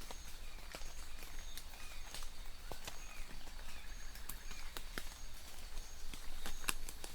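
Rain falling and dripping in irregular sharp ticks over a steady hiss, with short high chirps repeating about twice a second.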